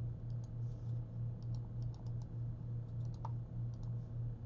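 Light, scattered clicks of a computer mouse and keyboard keys over a steady low hum.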